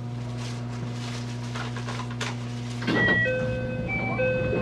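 JR West 223 series electric train standing at the platform with a steady low electrical hum. About three seconds in there is a thump, then a short run of electronic tones sounding one note after another.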